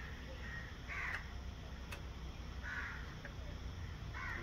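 Three short harsh caws from a bird, about one and a half to two seconds apart, over a low steady background rumble.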